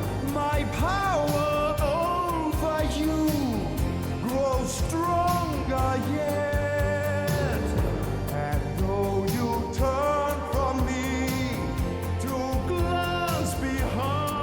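Recorded vocal music with a solo singer, the voice sliding and wavering between long held notes over a steady accompaniment.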